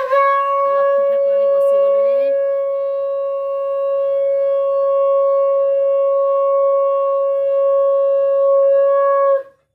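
Conch shell (shankha) blown in one long, steady note for about nine seconds, then stopping abruptly; sounded as the Manabasa Gurubar worship begins.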